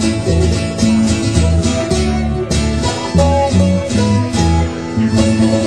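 Sea shanty played by a folk band, led by strummed acoustic guitar changing chords.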